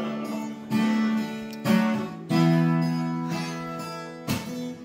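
Acoustic guitar strummed in a few separate strokes, each chord left ringing before the next.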